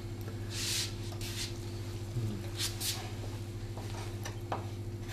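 Soft scrapes and rustles of sliced dough pieces being lifted off a floured wooden board with a knife and set onto a metal baking tray, a few short ones spread through, over a steady low electrical hum.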